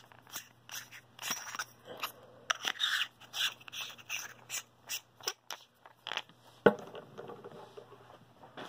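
Small metal clicks and scrapes from a tactical flashlight being unscrewed and its brass P60 drop-in LED module handled, in an irregular run. One sharper knock comes about two-thirds of the way through.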